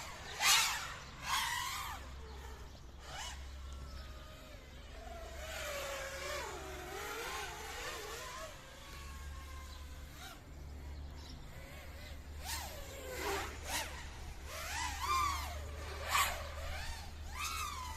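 FPV drone's brushless motors whining, their pitch sweeping up and down as the throttle changes, with a few sharper swells, over a steady low hum.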